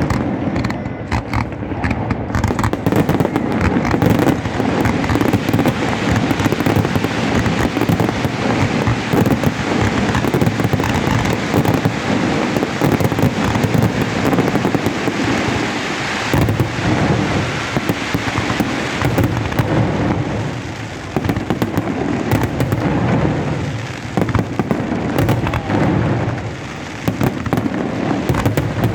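Fireworks display: a dense, continuous barrage of shells bursting and crackling, with many overlapping bangs and only brief lulls.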